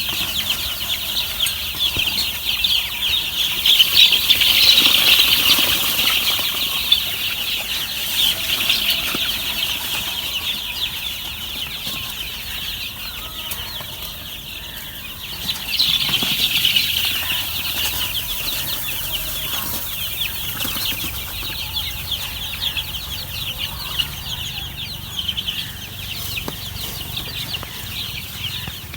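A brood of week-old chicks peeping together in a continuous, high-pitched chorus of many overlapping cheeps, louder around four seconds in and again at about sixteen seconds.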